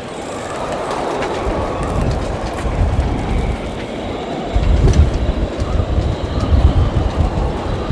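Storm-force wind gusting over the microphone, a loud roaring rumble that swells and grows stronger about halfway through.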